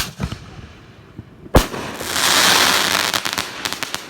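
Consumer aerial firework shells bursting: a sharp boom, a second boom about a second and a half later, then a long hissing crackle with rapid pops that fades out near the end.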